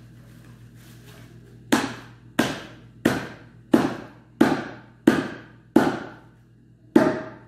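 Large kitchen knife hacking through a portion of butchered goat: eight heavy chops, about three every two seconds, starting a little under two seconds in, with a slightly longer pause before the last.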